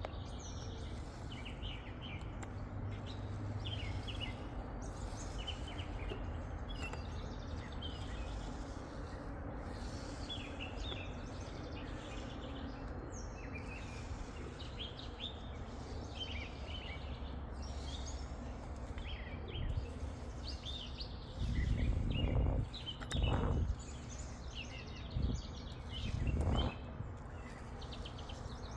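Small birds chirping over steady low outdoor background noise, with three short, louder low rumbles near the end.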